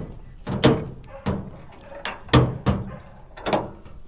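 A blade chopping into wood: a run of irregular heavy strikes, roughly two a second, some coming in quick pairs.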